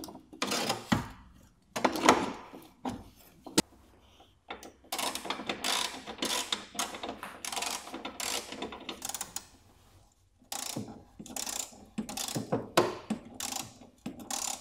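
Ratchet wrench clicking in two runs, from about five seconds in and again from about ten and a half seconds in, between scattered knocks and clicks of metal and plastic parts being handled.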